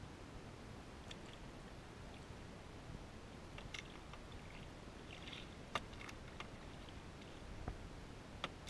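Canoe paddling on calm water: faint paddle strokes with soft splashes and drips, broken by a few sharp clicks, the loudest about halfway through and again near the end.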